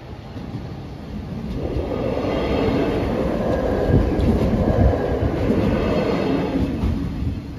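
DB Regio Talent diesel multiple unit passing over a level crossing. Its rushing wheel-and-engine noise builds about a second and a half in, holds steady with a faint high whine, and eases off near the end.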